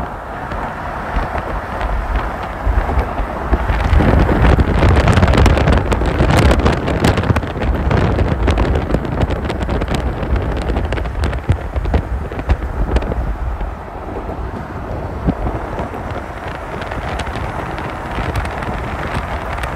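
Rumble of a moving vehicle with wind buffeting the microphone, louder and crackling from about four to twelve seconds in, then settling back to a steady rush.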